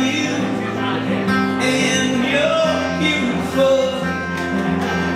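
Live music: an acoustic guitar strumming chords while a man sings into a hand-held microphone.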